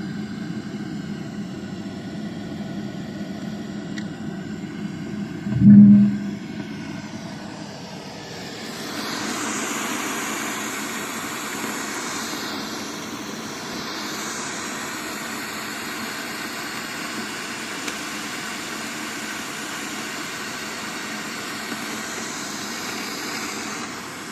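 Amplified feed from a microphone lowered down an 18 m borehole, played through a speaker: a steady low hum and rushing noise, which the recordists say comes from underground. A loud low thump comes about six seconds in, and a broader hiss swells up from about nine seconds on.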